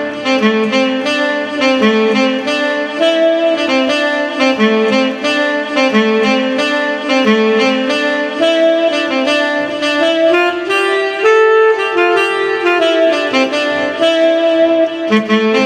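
Korg Pa 300 arranger keyboard playing a melody on a sustained wind-instrument lead voice. The melody runs over a steady rhythm accompaniment.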